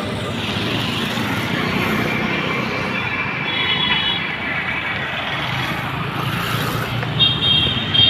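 Busy street traffic: motorcycles and other vehicles passing in a steady stream, with short horn toots about halfway through and again near the end.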